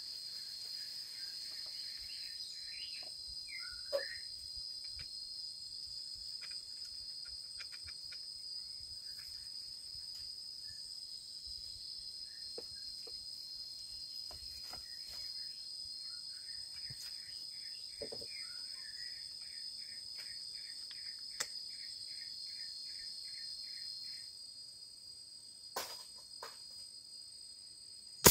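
Steady high-pitched insect chorus, with scattered short bird calls and a run of quick, evenly repeated notes in the middle. Right at the end comes a single sharp gunshot from a hunting gun fired up at birds.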